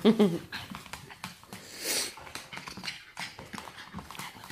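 Yorkshire terrier scuffling and thrashing about on a wooden floor, with light clicks and small dog noises and a short breathy huff about two seconds in.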